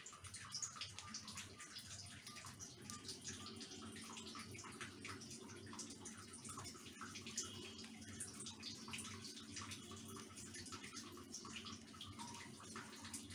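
Wet, oiled hands pressing and rolling soft rice-flour dough around shredded chicken filling: faint sticky squelching and small clicks, with a low steady hum underneath.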